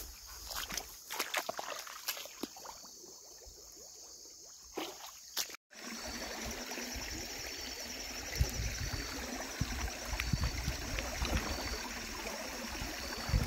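Scattered rustles and clicks, then, after an abrupt cut about halfway through, the steady rush of river water with low thumps underneath.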